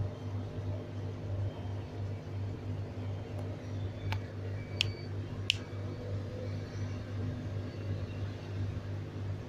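Steady low electrical hum of aquarium pump equipment, with three sharp ticks near the middle, each about two-thirds of a second apart.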